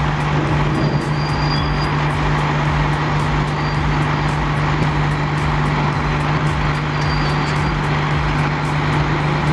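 A heavy machine's engine running steadily at one pitch, with background music over it.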